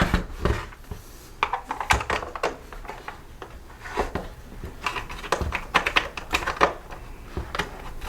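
Irregular clicks and clatter of a cordless blower's hard plastic housing and its small screws being handled and worked loose during disassembly.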